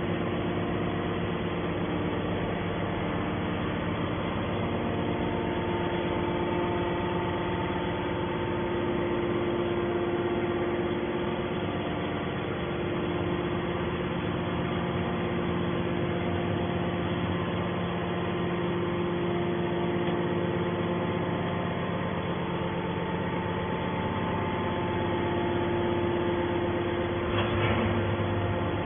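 Baling machine running steadily, a constant hum of several steady tones with no change in load.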